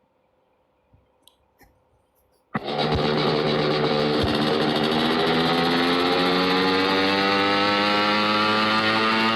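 A few faint clicks, then about two and a half seconds in a scooter engine starts abruptly and runs loudly, its pitch rising slowly and steadily as it revs up.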